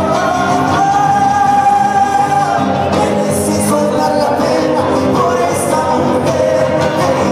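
Live amplified band music: a singer over strummed guitars.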